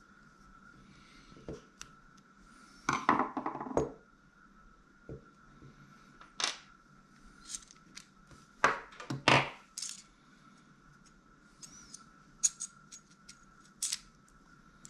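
Metal parts of a Shimano Stella SW 30000 spinning reel clicking and clinking as its handle is unscrewed and taken off to swap it to the other side. The clicks are scattered and irregular, with short rattling clusters about three seconds in and again around nine seconds.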